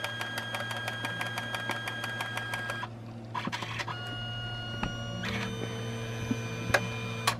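Canon Selphy CP1300 dye-sublimation photo printer's motors running while it works on a print: a steady mechanical whir made of rapid, even ticking, whose tones change in steps about three and five seconds in, with a couple of sharper clicks near the end.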